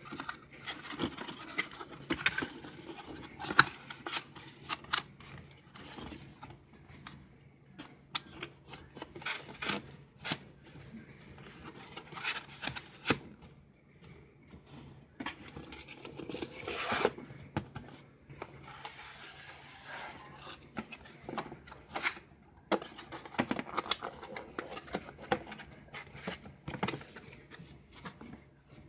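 Corrugated cardboard shipping box being folded and tucked together by hand: irregular creasing, scraping and tapping of cardboard.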